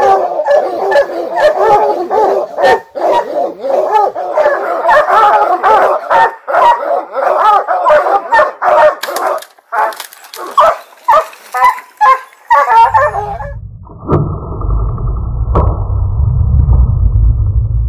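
Pack of lion hounds baying and barking hard and without pause at a treed mountain lion. After about thirteen seconds the barking stops and a low, muffled rumble takes over.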